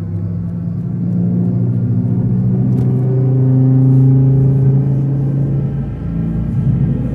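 Low, rumbling synthesized drone made of several sustained tones that hold and shift in pitch every second or two: ominous sci-fi score or sound design for a UFO encounter.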